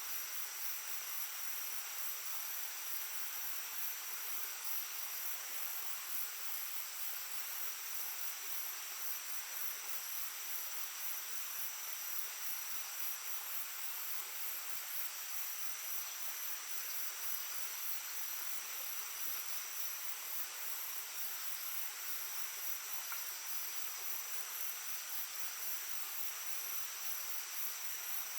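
Small stream babbling steadily, with insects keeping up a continuous high-pitched trilling over the water.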